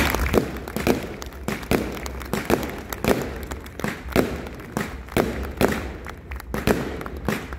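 Castillo fireworks: rockets and aerial shells going off in a rapid, irregular string of sharp bangs, two or three a second.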